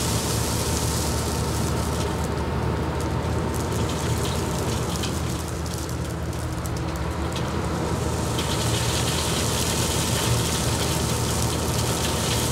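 Crushed stone pouring from an excavator bucket into the feed hopper of a vibroflot stone column rig, a rain-like hiss that dies away about two seconds in and starts again about eight seconds in. Underneath runs a steady low drone of heavy machinery.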